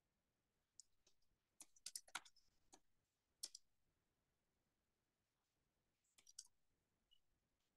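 Faint computer keyboard typing: a few quick runs of key clicks with pauses between them.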